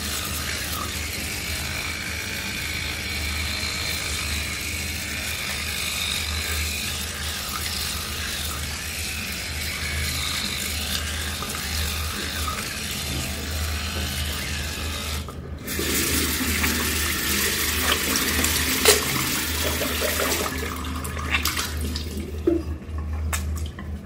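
Water running steadily from a tap into a bathroom sink. About fifteen seconds in it briefly drops away, then runs louder with scattered clicks and knocks.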